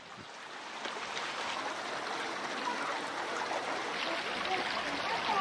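Running water of a small stream or channel, a steady rushing trickle that grows louder over the few seconds.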